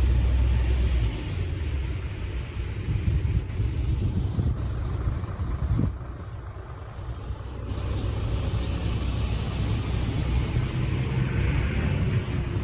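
Heavy diesel construction machinery running with a steady low rumble. It is loudest in the first second, eases off for a couple of seconds in the middle, then picks up again.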